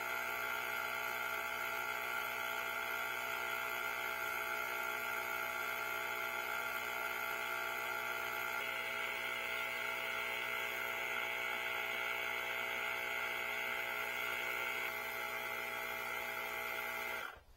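Cordless battery-powered portable tire inflator running steadily, a whine made of several fixed tones as its small compressor pumps air into a large truck tire. The tone shifts slightly about nine seconds in, and the sound cuts off suddenly near the end.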